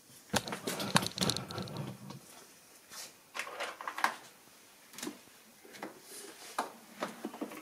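Handling noises as a coolant heater module is pressed into place on a Mercedes engine: a close run of light clicks and scrapes over the first two seconds, then scattered single clicks and knocks.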